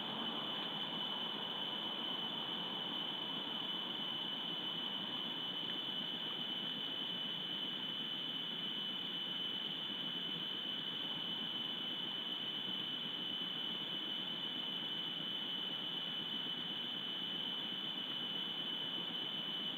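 A steady high-pitched whine over a constant hiss, unchanging throughout: the background noise of an outdoor webcam's microphone.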